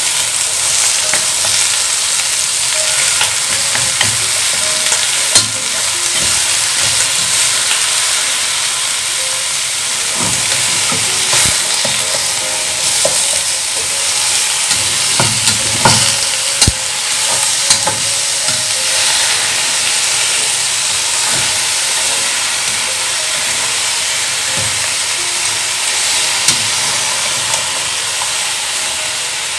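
Pork ribs sizzling steadily as they fry in a hot pan, while a metal spatula stirs and turns them, scraping and clinking sharply against the pan now and then.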